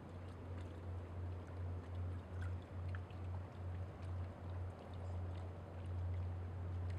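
Waterfront night ambience across a bay: a low rumble that swells and fades every half second or so, with faint scattered ticks over a soft hiss.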